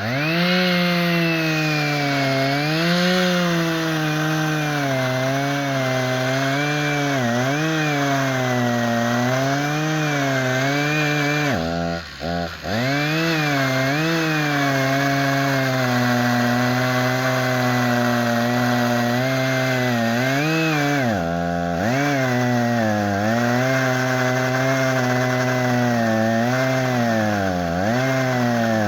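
Chainsaw running at high revs under load, cutting oak, its pitch wavering with the cut. The revs drop off briefly twice, a little before halfway and about three-quarters through, then climb back up.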